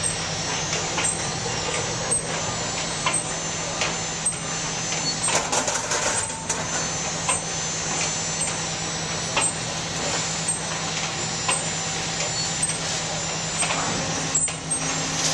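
Steady industrial machinery hum of a conveyor feeding paper trimmings into a baler's charge box, with scattered rattles and knocks. Near the end a new low steady tone comes in as the baler starts its cycle.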